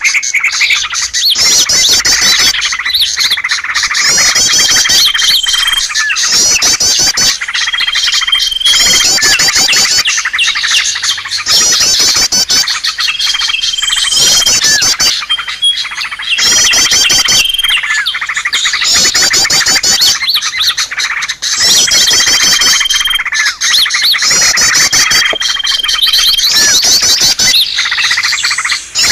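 Bird-lure recording of many small songbirds calling at once: a loud, dense mix of fast twittering chirps and trills, with a thin, steady whistle note about a second long that comes back every few seconds.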